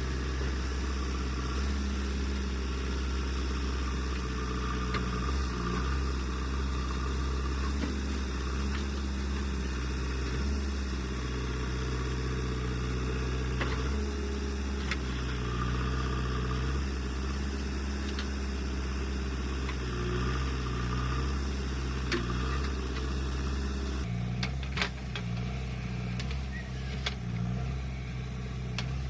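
JCB 3DX backhoe loader's diesel engine running, its pitch stepping up and down as it works. A few sharp knocks come through, more of them in the last few seconds.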